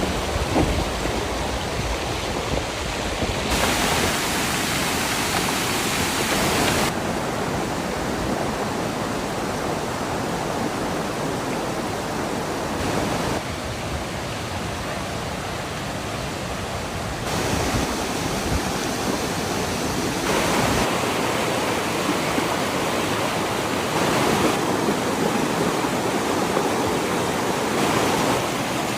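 Rain and rushing rainwater: a steady loud wash of water noise, broken into short stretches that change character abruptly every few seconds.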